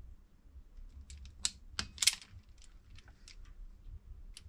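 Irregular small clicks and light metallic taps of pliers working a wire at a generator's brush holder, loudest in a quick cluster about two seconds in.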